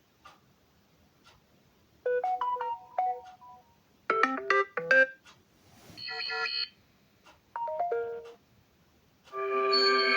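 Samsung Galaxy M32 phone speaker playing a run of short preset ringtone melodies one after another, five brief jingles of a few notes each, separated by short gaps. The last runs on as a sustained chord. Faint ticks come before the first one.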